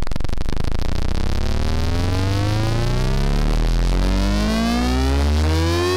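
Electronic soundtrack riser: a synthesizer sweep of many stacked tones gliding steadily upward in pitch over a deep bass drone.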